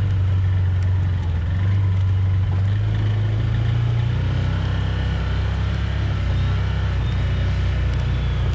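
Side-by-side utility vehicle driving along a dirt and grass track, its engine running with a steady low drone that shifts slightly in pitch a few seconds in.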